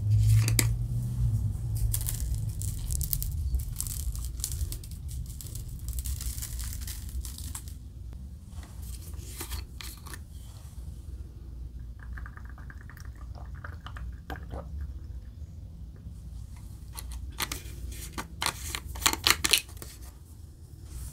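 A bottle of bagel sesame seasoning being shaken over a plate of food, rattling in short bursts as seeds scatter onto the food. A steady low hum runs underneath.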